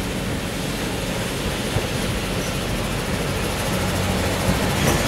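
Ex-South Australian Railways Brill railcar No. 60 drawing slowly into a platform: a steady engine hum and rolling rail noise that grow a little louder as it comes close near the end.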